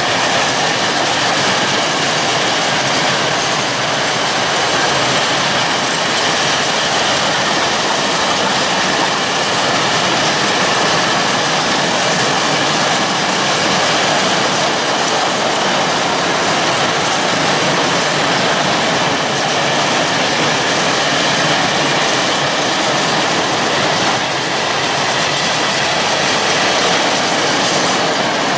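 Freight train of coal wagons hauled by an ET42 electric locomotive rolling past close by, a steady, unbroken noise of wagons running over the rails.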